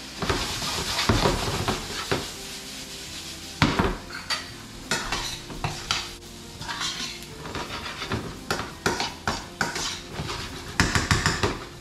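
Metal spatula clinking and scraping against a stainless steel frying pan as whole baby potatoes are stirred and tossed, in irregular knocks, over a light frying sizzle.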